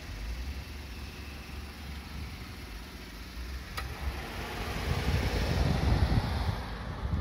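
Wind buffeting the microphone over a low steady rumble, the gusts growing louder in the second half.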